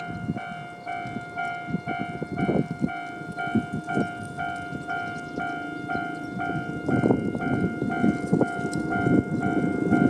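Japanese level crossing electronic warning bell in the old JNR tone, striking a little over twice a second in an even, ringing two-tone repeat. A rough low rumble builds up under it near the end.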